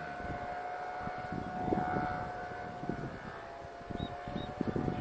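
Distant paramotor engine running as a steady high hum, with wind gusting on the microphone.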